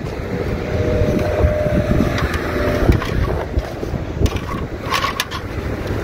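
Wind buffeting the microphone. Under it, spoons, a knife and a metal tray are scrubbed with a scouring pad, with scraping and several sharp metallic clinks about four to five seconds in.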